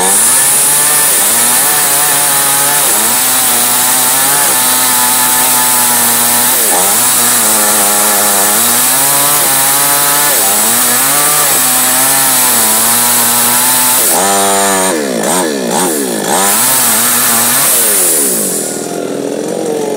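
Two-stroke chainsaw at full throttle cutting through a log, its engine note sagging and recovering under the load of the cut. About fourteen seconds in it revs up and down several times, then drops off near the end.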